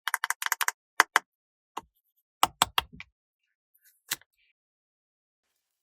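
Quick clicks and taps of small hard toys being handled: a rapid run of about eight at the start, then a few more spread out, stopping a little past four seconds in.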